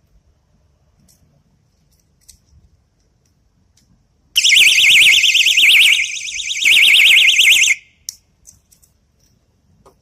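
Personal safety alarm keychain sounding its shrill, rapidly warbling siren for about three and a half seconds, briefly quieter partway through, then cut off. A few faint handling clicks come before and after.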